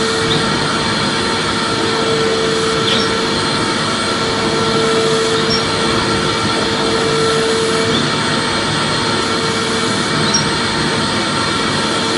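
Vacuum cleaner running continuously: a steady rush of air with an unchanging motor whine.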